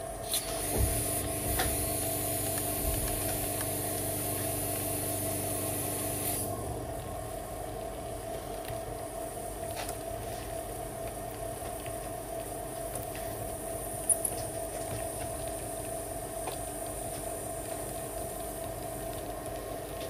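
A small electric motor in a handheld wire tool runs steadily for about six seconds and cuts off, over a steady hum. A single sharp click comes near the end.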